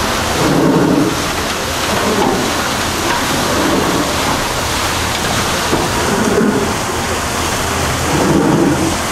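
Steady splashing and rushing of water churned up by a sternwheel riverboat's paddlewheel, with low surges every second or two.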